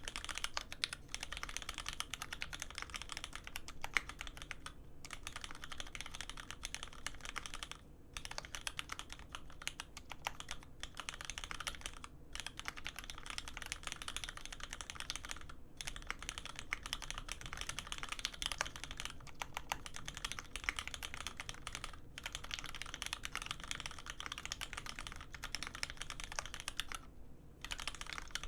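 Continuous typing on a custom mechanical keyboard with an aluminium plate, lubed Cherry Hyperglide Black linear switches on 70g springs and GMK keycaps: a fast, dense stream of keystroke clacks, broken by a few short pauses.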